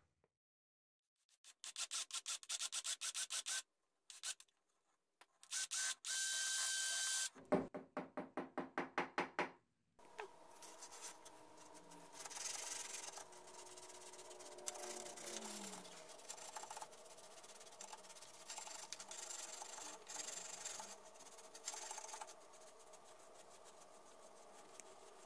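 A rod-building reamer rasping back and forth inside the bore of a carbon rod grip, opening the handle out to fit the blank. The strokes come in quick even runs with short silent gaps at first, then as a steadier rubbing from about ten seconds in.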